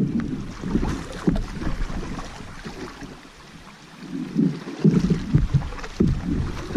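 Water splashing and churning around a kayak as it is paddled through moving river water, in irregular bursts. Wind buffets the microphone as a deep rumble from about five seconds in.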